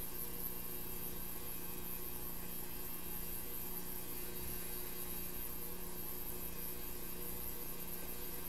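Steady electrical hum with a faint high whine, unchanging throughout.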